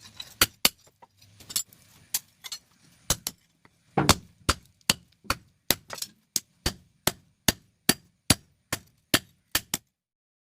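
Blacksmith's hammer striking metal on an anvil: a few uneven blows at first, then a steady run of ringing strikes, about two and a half a second, that stops shortly before the end.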